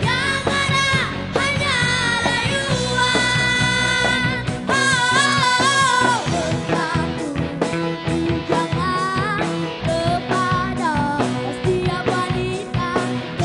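Live rock band playing a song, with young women singing the melody over electric guitar, bass guitar and drums.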